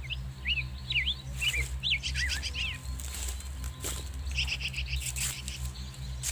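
Small birds chirping: a run of short, quickly swooping chirps in the first three seconds, then a fast trill of repeated notes about four and a half seconds in.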